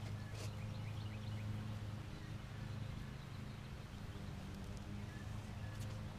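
A steady low hum with faint birds chirping now and then, and a short soft rustle about half a second in as a hand sweeps loose topsoil.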